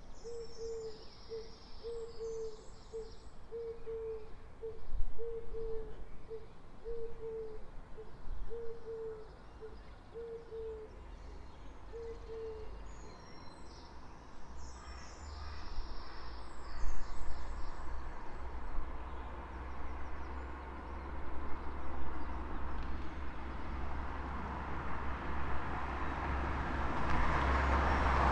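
Early-morning street ambience: songbirds chirp twice, and a low single note is repeated about twice a second for the first twelve seconds. A low traffic rumble builds from about halfway, and a car approaches, getting steadily louder toward the end.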